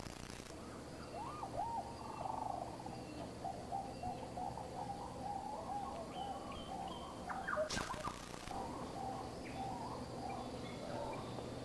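Birds calling: many short chirping calls repeated throughout, with a brief hiss-like burst about eight seconds in.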